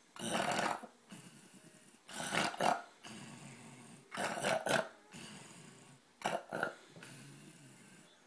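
A man snoring: four snores about two seconds apart, each followed by a softer breath.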